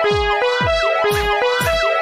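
Electronic music with a synth beat: low kick-drum thuds about twice a second under a repeating two-note pattern that swaps back and forth.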